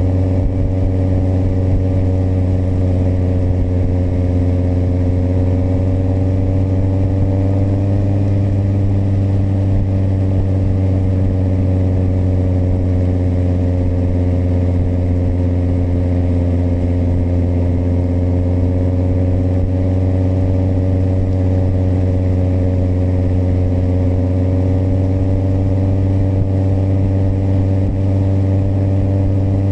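Kawasaki motorcycle engine running at a steady cruising speed, its pitch drifting slightly up and down a couple of times.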